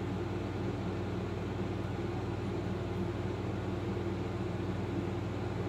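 Transformer-type soldering gun humming steadily while it is held on to melt solder, a low electrical buzz with evenly spaced overtones.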